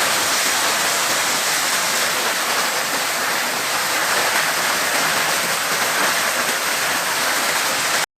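Steady rushing of water, an even hiss that holds the same level throughout and cuts off suddenly near the end.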